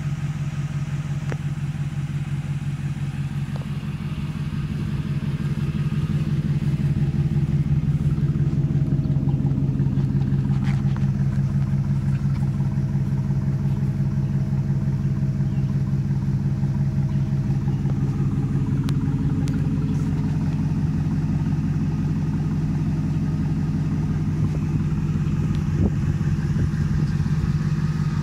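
Supercharged 5.4-litre V8 of a 2007 Ford F-150 Roush Stage 2 idling steadily, growing louder from about five seconds in.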